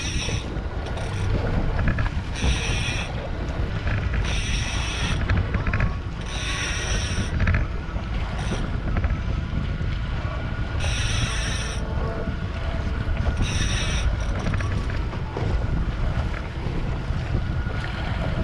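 Outboard motor running under way, with wind buffeting the microphone as a steady low rumble. Short bursts of a higher hiss recur every couple of seconds.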